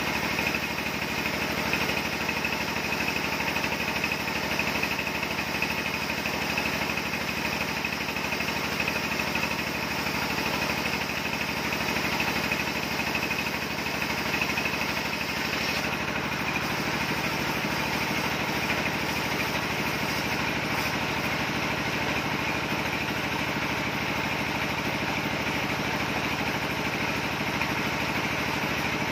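Horizontal band sawmill running steadily without cutting: a continuous mechanical drone whose tone shifts slightly about halfway through.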